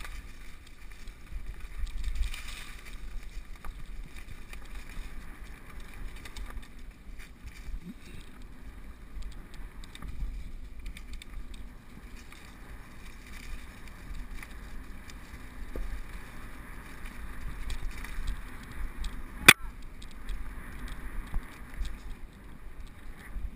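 Mountain bike descending a rough dirt trail, picked up by a GoPro: continuous rumble and rattle from the bike over the ground, with wind on the microphone. One sharp knock comes a few seconds before the end.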